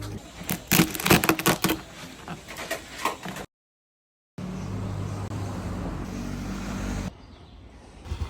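A few seconds of sharp knocks and clatter, then, after a brief break, a motor running with a steady low hum that drops away near the end.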